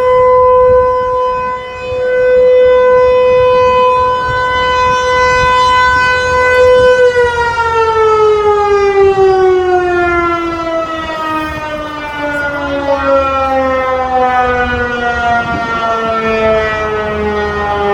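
Federal Signal 508 outdoor warning siren sounding a loud steady tone, then winding down from about seven seconds in, its pitch falling steadily as it shuts off at the end of the test.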